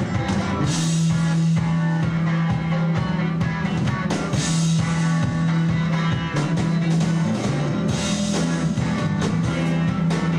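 Live rock band playing: electric guitars, bass guitar and drums, with a steady low note held for several seconds under regular drum hits and cymbals.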